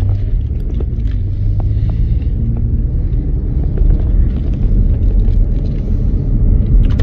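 A steady low rumble, as of a road vehicle running, with a few faint clicks.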